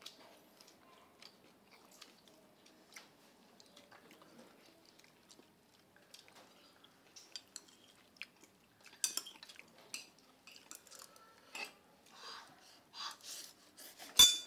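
Chewing and light clinks of spoons and chopsticks against ceramic bowls, scattered and faint at first and busier from about nine seconds in, with one sharp clink near the end.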